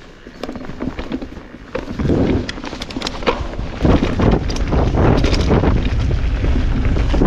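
Mountain bike ridden down a dry dirt trail, heard on a helmet- or bike-mounted action camera: wind buffeting the microphone with a steady rumble, and many short knocks and rattles from the bike over the ground. It grows louder about two seconds in.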